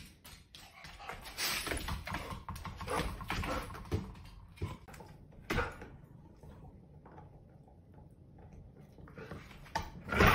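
A border collie's claws clicking and scuffing on a vinyl kitchen floor as it moves about with its toys: scattered short clicks, busier in the first half. A louder sharp knock comes at the very end.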